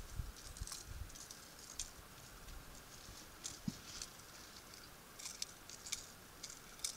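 Faint, irregular little splashes, drips and ticks of water as a northern pike is held in the lake at the side of an aluminium boat, with one soft knock against the hull about three and a half seconds in.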